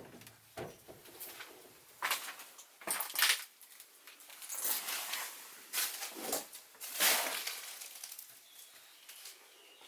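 Irregular scuffs and knocks, roughly one every second, each a short brushing or knocking noise.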